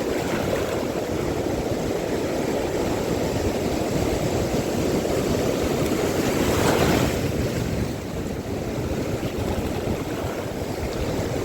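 Steady rush of sea waves and wind buffeting the microphone, swelling briefly about seven seconds in.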